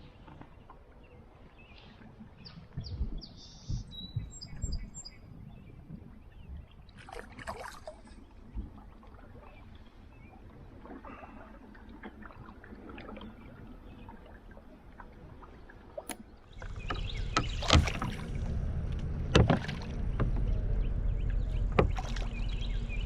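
Fishing kayak on a river: small knocks and water sounds against the hull, with a few short high bird chirps about four to five seconds in. About sixteen seconds in, a louder steady rushing noise with sharp knocks sets in.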